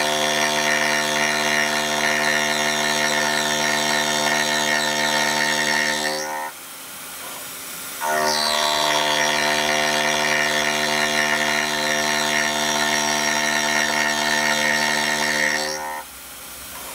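Single-insert 12 mm indexable endmill rough-milling St37 steel on a CNC mill at 4600 RPM: a loud, steady, pitched cutting tone with many overtones. Twice, about six seconds in and again near the end, the tone drops away for a second or two and only a quieter machine sound remains, before the cut resumes.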